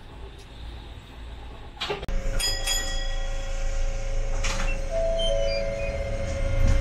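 Inside a Toden Arakawa Line tram at a stop: a low hum, then about two seconds in a knock, with sliding-door sounds and a short run of high tones, after which the louder running noise of the tram's electric drive sets in, with steady whining tones.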